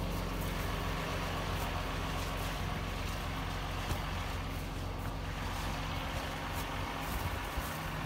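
A farm vehicle's engine running steadily, an even low hum.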